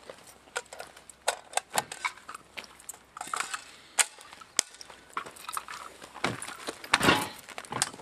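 Metallic clicks and rattles of a magazine-fed shotgun being handled and its action worked, with a few sharp snaps about four seconds in. Near the end, footsteps crunch on gravel.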